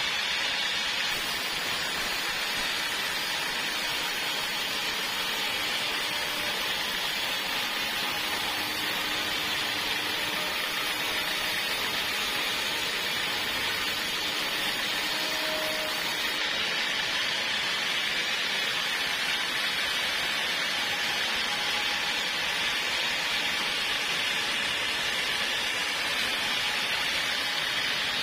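Portable sawmill's saw running steadily through a log: a continuous high hiss that holds at one level.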